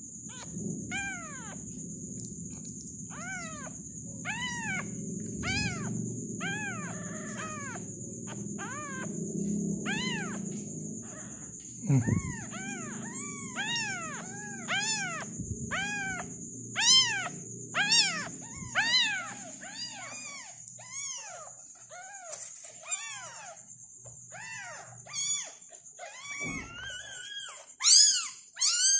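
Newborn tabby kittens mewing over and over, short rising-and-falling cries about one a second, louder and overlapping near the end.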